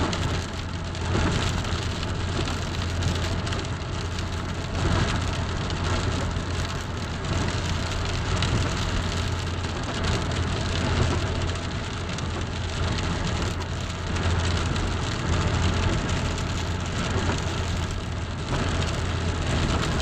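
Steady rain falling, a continuous even hiss with small swells, over a constant low rumble.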